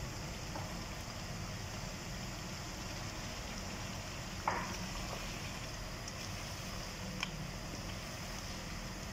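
Mutton and fried taro (arvi) sizzling steadily in a hot wok. A spatula knocks against the pan once about four and a half seconds in, and more faintly near seven seconds.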